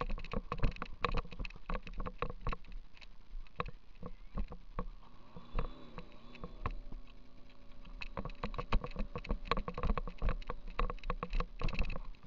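Muffled, rapid knocking and rattling from a helmet camera in a waterproof housing, jostled as the wearer runs: footfalls and the case bumping. The knocks thin out briefly around the middle and pick up again afterwards.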